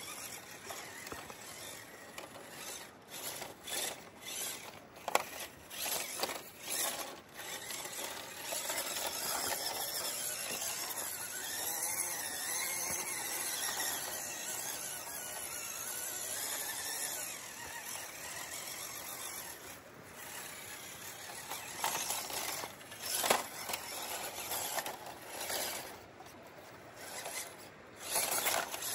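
WPL C24 1/16-scale RC crawler's electric motor and gearbox whining as it drives, the pitch wavering up and down with the throttle. Scattered sharp knocks and clicks run through it.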